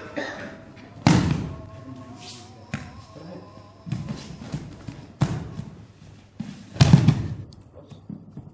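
Heavy thuds of bodies landing on foam judo-style mats as aikido partners are thrown and take breakfalls, four of them, the loudest about a second in and near seven seconds.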